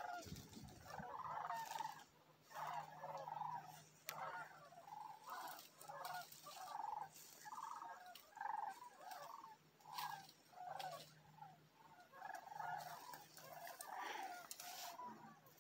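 A flock of sandhill cranes calling overhead: faint, repeated calls, about two a second, with a few short gaps.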